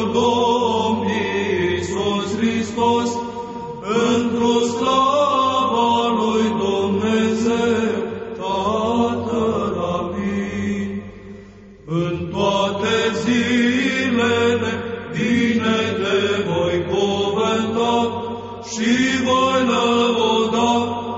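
Byzantine Orthodox chant: a slow, melismatic sung melody over a steady low held drone (the ison). The singing drops away briefly about eleven seconds in, then resumes.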